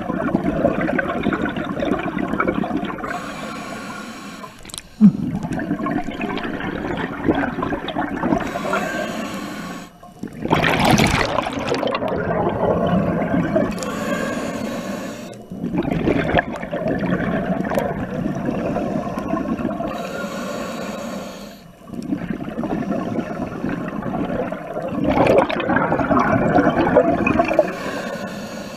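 Underwater sound of a scuba diver breathing through a regulator: exhaled bubbles gurgle past the camera in bursts, one breath about every five to six seconds, with a brief lull between breaths. A short sharp knock about five seconds in.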